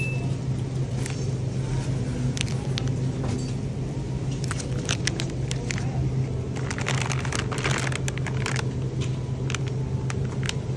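Plastic packages of frozen food crinkling and crackling as they are picked up and handled, heaviest in the middle, over a steady low hum from the supermarket's freezer cases.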